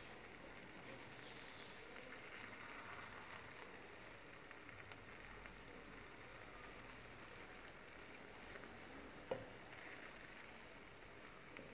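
Wooden spoon stirring cooked bulgur in an unglazed clay pot: a faint scraping and rustling hiss of the grains, with one sharp knock of the spoon against the pot about nine seconds in.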